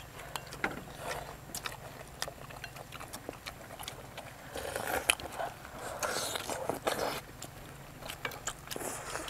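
Close-miked eating sounds: irregular wet mouth clicks and smacks of several people chewing chicken curry and bread, with a few longer slurping, finger-sucking sounds in the middle.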